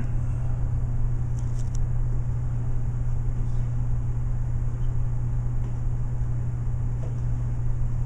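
Steady low background hum in a lecture room, with a few faint clicks about a second and a half in.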